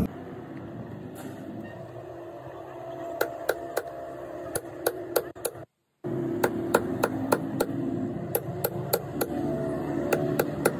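A hammer tapping in a quick series of sharp knocks, about three a second. The taps begin about three seconds in and break off briefly near the middle.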